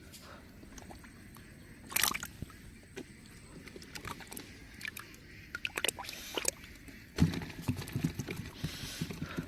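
Water splashing and sloshing in short irregular bouts, with scattered sharp knocks; the longest bout comes near the end.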